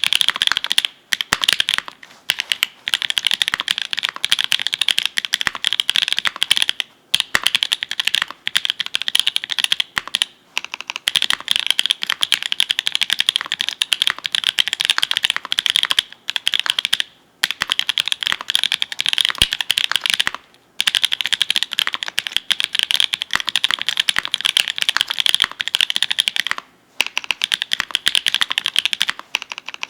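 Steady typing on a mechanical keyboard with linear Frankenstein switches: Kailh Red POM stems in nylon Everglide V2 housings with 58 g springs, set in an FR4 plate under GMK keycaps. Each key bottoms out as a dense stream of clacks, broken by brief pauses every few seconds.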